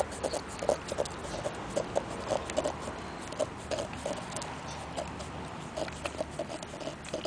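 A golden retriever–cocker spaniel mix licking and lapping whipped cream out of a paper coffee cup. Wet licks and smacks come irregularly, several a second.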